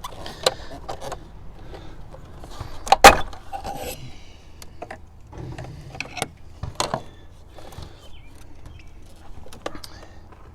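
Screwdriver prying and wiggling the tab of a small hose clamp on an evap purge line: a series of sharp clicks and short scrapes, the loudest about three seconds in.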